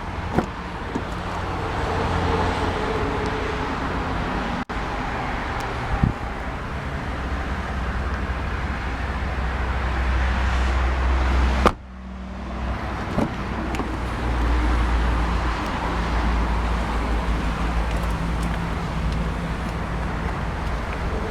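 Steady low rumble and hiss of vehicle and road-traffic noise, broken abruptly about halfway through, with a few faint clicks.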